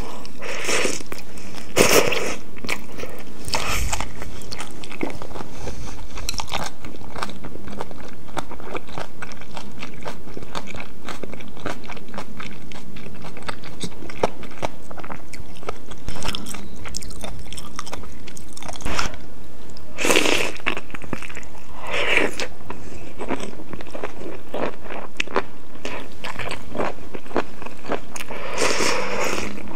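Close-miked eating of noodle soup with chicken and snow fungus. Chewing runs throughout as many small clicks, broken by a few longer, louder bursts where noodles are slurped from spoon and chopsticks.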